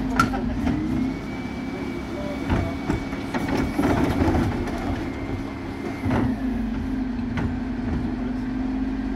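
A refuse truck's Terberg rear bin lift raises and tips two wheelie bins into the hopper, then lowers them, over the steady hum of the running truck and its hydraulics. A thin whine holds while the lift moves. In the middle come knocks and clatter as the bins are shaken and the waste drops in.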